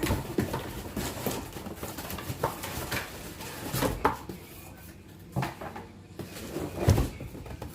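Irregular knocks, clinks and rustling as a stainless steel kettle and its packaging are handled during unboxing, with one louder knock near the end.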